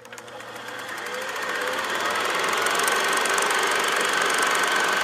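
Film projector starting up: it grows louder over the first couple of seconds, with a short rising whine as the motor comes up to speed, then settles into a steady, fast mechanical clatter.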